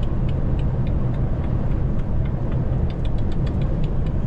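Steady low rumble of engine and road noise inside a DAF XF truck cab cruising at motorway speed, with a faint, even ticking about four times a second.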